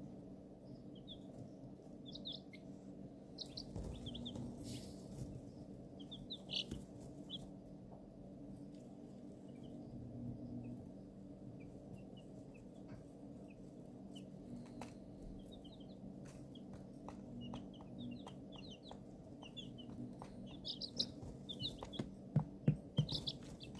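A brood of young domestic chicks peeping, short high chirps scattered throughout over a steady low hum, with a few louder sharp taps near the end.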